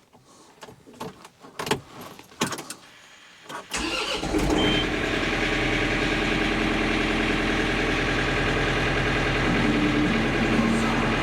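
A few sharp knocks and clicks, then an engine starts about four seconds in and runs steadily at idle.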